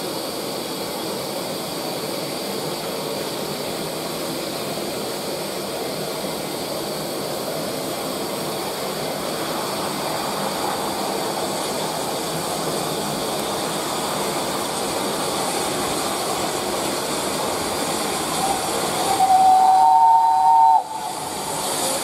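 BR Standard Class 5 steam locomotive 73082 approaching with a train, with a steady hiss of steam that slowly grows louder. Near the end it sounds its whistle in a loud two-note blast of about two seconds that cuts off sharply.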